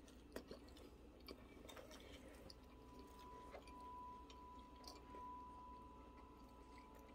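Faint chewing of a bite of crisp stuffed waffle with chicken and syrup, with a few small clicks. A faint steady high tone comes in about three seconds in.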